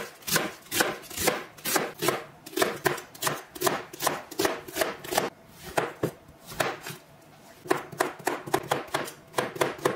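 Knife chopping food on a cutting board, with steady strokes about two or three a second and a short pause about seven seconds in.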